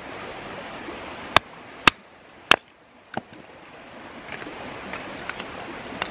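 Knife batoned through a stick with a wooden baton: three sharp wood-on-steel knocks about half a second apart, a little over a second in, then a softer knock. A creek rushes steadily underneath.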